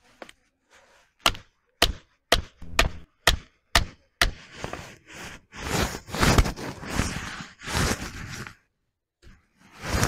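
A hatchet chopping firewood on a chopping log: seven sharp strikes about half a second apart, followed by a few seconds of rough scraping noise.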